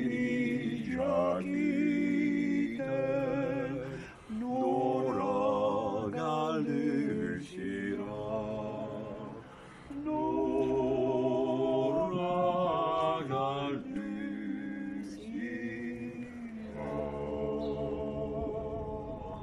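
Men singing a Basque song together without accompaniment, with vibrato. The song runs in several phrases with short breaks and ends on a long held note.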